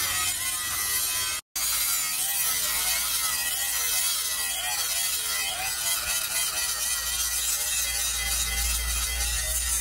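Electric angle grinder with an abrasive disc grinding a steel blade, a steady run with a whine that wavers in pitch. The sound cuts out for an instant about a second and a half in, then carries on.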